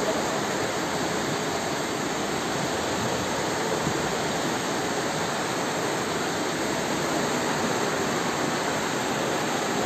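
Muddy floodwater from an overflowing mountain stream rushing down a street: a steady, unbroken rush of water.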